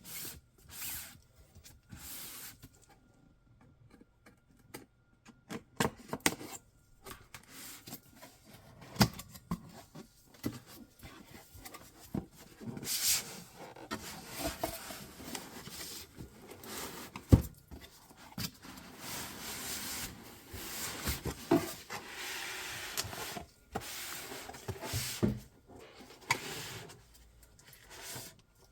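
Hands handling a product box and its packaging: rubbing and sliding with scattered taps and knocks, the sharpest knock a little past halfway.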